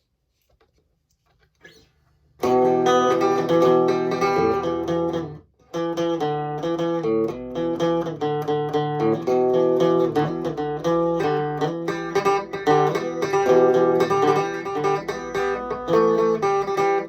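Fender Stratocaster electric guitar being played, notes and chords picked in a steady stream. It comes in after about two seconds of near silence, stops briefly around a third of the way through, then carries on.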